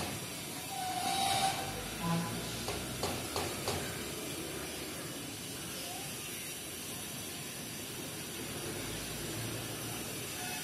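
Steady background hiss of outdoor ambience. In the first four seconds there are a few short high tones and light clicks; after that only the even hiss remains.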